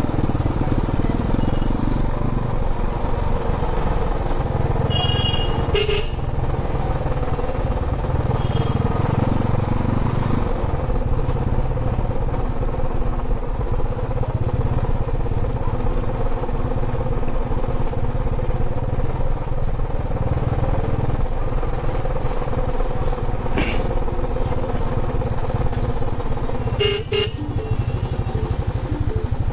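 Royal Enfield motorcycle engine running steadily at low speed, heard from the rider's seat, with short horn honks about five seconds in and again near the end.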